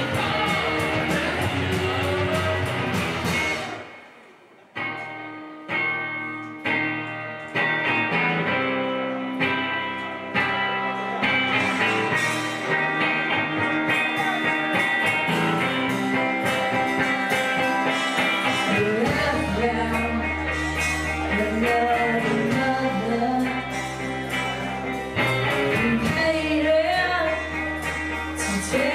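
Live indie rock band playing with electric guitars, bass and drums. About four seconds in the band stops short, then comes back with a few separate chord hits about a second apart that build back into the full song. Singing returns over a heavier bass line in the second half.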